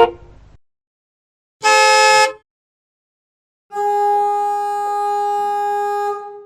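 Vehicle horns: a short horn blast about two seconds in, then a long steady horn blast lasting about two and a half seconds, both with silent gaps around them.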